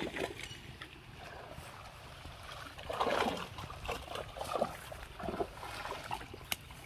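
Pond water sloshing and splashing as people wade through it dragging a fishing net, in irregular surges, the strongest about three seconds in. A brief sharp click near the end.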